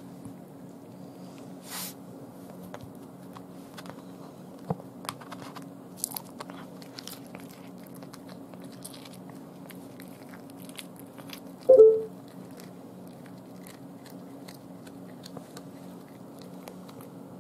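Kitten chewing on a raw day-old chick: scattered small crunches and clicks of bone and flesh. One brief, much louder sound about two-thirds of the way through.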